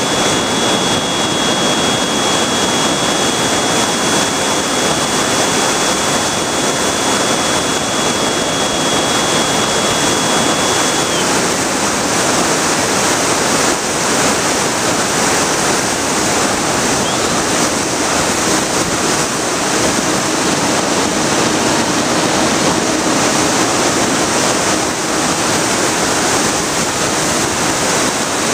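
Loud steady rush of airflow over the onboard camera's microphone of a Bixler foam RC plane in flight, with a thin high whine from its electric motor that stops abruptly about eleven seconds in.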